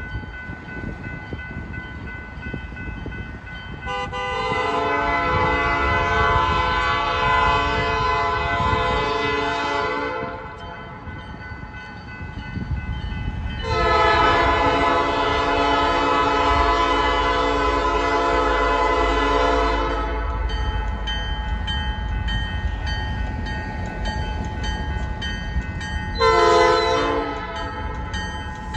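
Approaching diesel locomotive sounding its multi-chime air horn in the grade-crossing pattern: two long blasts and then a short one, over a deep engine rumble. A crossing signal rings steadily underneath.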